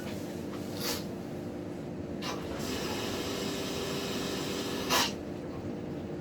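Water rushing out of a water heater's drain valve into a bucket as the tank is flushed of sediment. It is a steady hissing gush that gets louder for a couple of seconds in the middle, with three short swishes, the last and loudest near the end.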